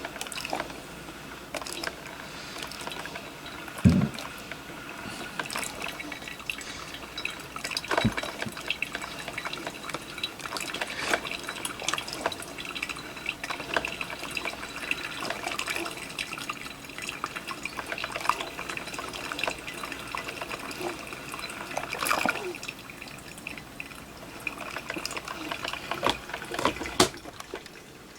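Drip coffee maker brewing, hot water dripping and trickling slowly through cocoa powder in the brew basket, with many irregular small drips. A dull knock about four seconds in is the loudest sound.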